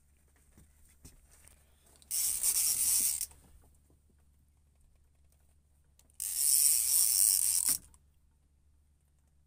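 Boat fishing reel's ratchet clicking rapidly in two bursts, one of about a second and a longer one of about a second and a half, while the rod is bent hard under a hooked fish.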